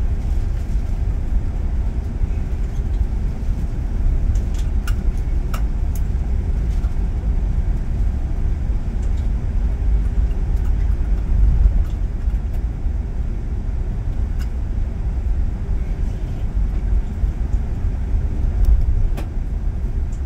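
Airbus A380 cabin noise on the ground: a steady low rumble heavy in the bass, with a few faint clicks.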